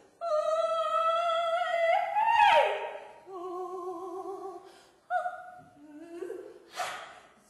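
A performer's wordless voice holding a high sung tone that climbs slightly, then slides steeply down about two and a half seconds in. After a short break it holds lower, quavering tones, then rises in a short glide, with a brief sharp sound near the end.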